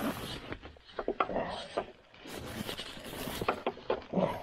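Green ratchet tie-down strap being worked by gloved hands over a fabric tarp: runs of sharp ratchet clicks about a second in and again past three seconds, with the tarp and strap webbing rustling between them.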